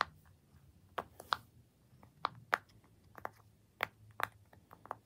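Round rainbow silicone pop-it fidget toy being pressed bubble by bubble with a finger, giving about ten short, irregularly spaced pops.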